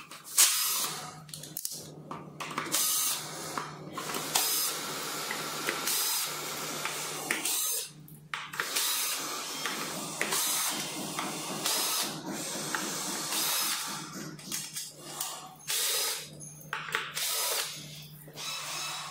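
Cordless drill-driver spinning screws out of a scooter's metal deck plate, in repeated runs of a second or two with short pauses between them.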